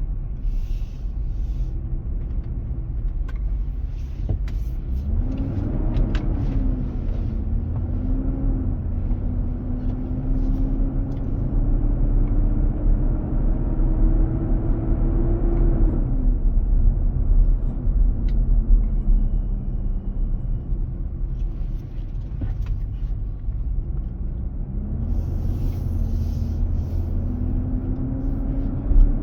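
Inside the cabin of a 2023 Nissan Armada while driving: a low, steady rumble under a loud droning tone that rises in pitch over several seconds and then drops away, more than once. The drone comes from the engine's cooling-fan clutch staying engaged, which the dealer identified as the source of the noise.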